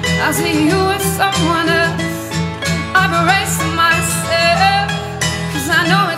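A live band playing: a steady, pulsing bass and drums with cymbals, and a melody line that bends and wavers in pitch over them.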